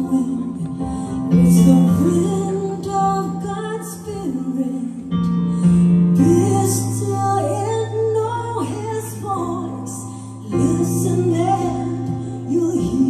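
Music: a woman singing a Christian worship song over instrumental backing with long held bass notes.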